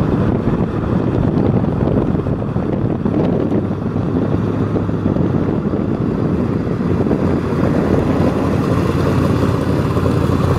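V8 engine of a mid-1960s Chevrolet Corvette Sting Ray convertible running at low speed as the car rolls slowly past: a steady, deep engine rumble.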